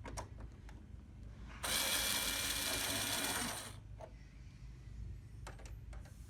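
A small power tool, such as a cordless screwdriver, runs in one burst of about two seconds, with small clicks and knocks before and after. This is the sound of the screws coming out of the laser printer's back cover.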